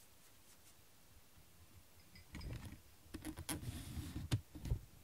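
A cat eating from a bowl: after about two seconds of quiet, a run of chewing and crunching with several sharp clicks.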